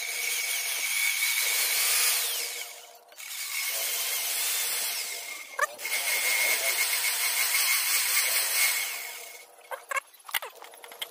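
Electric drill running in three long bursts, each a steady whine, spinning a motorcycle engine valve against its seat in the cylinder head with grinding compound to lap it. A few light knocks follow after the drill stops.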